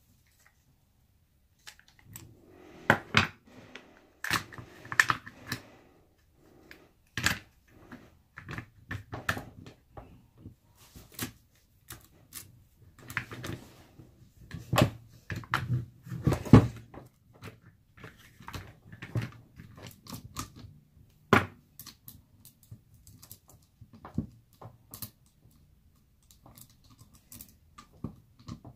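Irregular clicks, clacks and short rattles of an Edon 10-inch cordless chainsaw's metal bar and chain being handled and fitted to the saw body on a wooden table.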